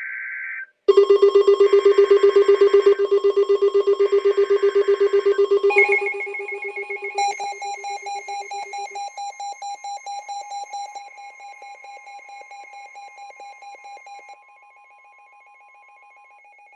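Emergency Alert System alert tones: the end of a short data burst, then a loud, rapidly pulsing electronic alert tone layered with steady tones, which shifts pitch about six seconds in and steps down in loudness until it is faint near the end.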